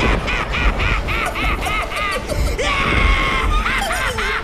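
High-pitched cartoon alien voice laughing maniacally in quick 'ha-ha' bursts, about four a second, broken by one held shriek just before the end, over music.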